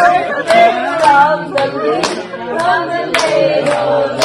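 People singing, with hands clapping along.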